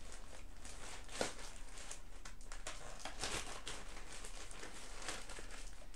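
Rustling and crinkling of a cross-stitch project and its fabric being handled and pulled out, irregular throughout, with a small knock about a second in.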